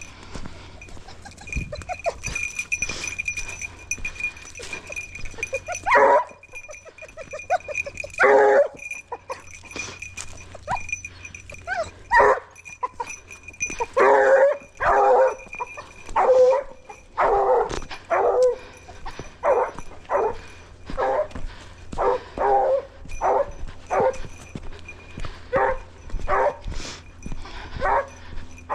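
Hunting dog barking in the hedgerow cover: a few single barks at first, then a steady run of barks about one a second through the second half.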